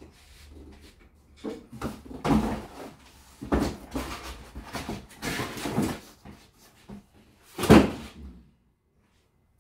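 Cardboard box being handled and unpacked: crumpled paper packing rustling and crinkling as it is pulled out, with a sharp thump just before 8 s, the loudest sound, as the box is set down.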